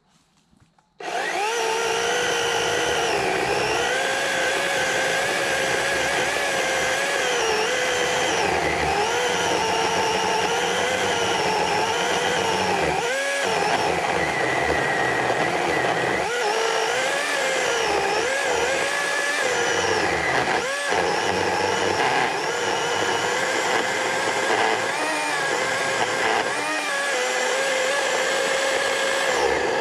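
Greenworks GS180 82-volt brushless cordless chainsaw starts up about a second in and runs loud and steady, cutting into a large tree trunk. Its whine wavers and sags briefly a few times as the chain bites into the wood.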